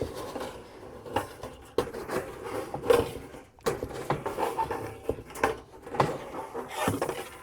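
Irregular knocks, clatters and rattles of wire mesh being handled and unrolled over a plywood board.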